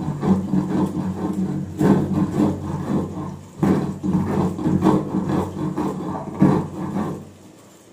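Stone grinding slab (sil-batta): the grinding stone is pushed back and forth over a dry mixture, stroke after stroke, with a gritty scraping and crunching. The mixture is being crushed only coarsely rather than ground to a powder. The grinding dies away near the end.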